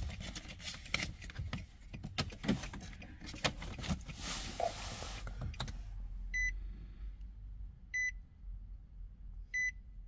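Nissan Maxima's warning buzzer beeping three times, short high beeps about a second and a half apart, in the second half. Before them come clicks and knocks of the smart key being handled and pulled from the key slot.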